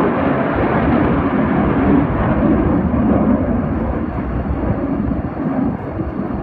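Jet noise from a Saab JAS 39 Gripen fighter's single turbofan engine, a low, dense rumble that swells to its loudest about two to three seconds in and eases off toward the end as the jet passes.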